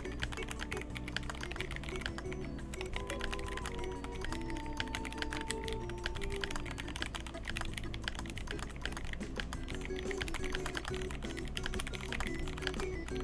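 Rapid typing on a GMMK Pro mechanical keyboard fitted with tactile switches, a dense stream of key clicks, over background music.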